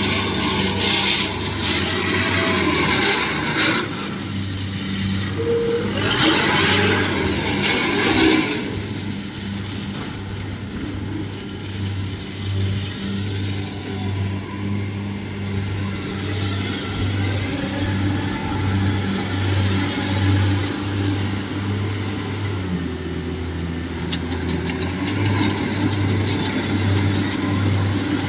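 Engines of a rice combine harvester and a small tracked carrier running steadily, with a regular low pulsing. Two bursts of louder rushing noise come in the first eight seconds or so.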